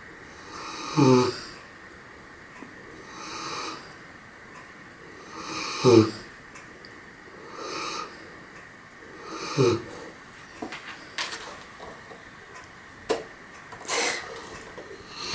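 Large Caucasian shepherd dog asleep and snoring: a loud snore about every four seconds, with a softer breath between snores. A few small clicks come in the last third.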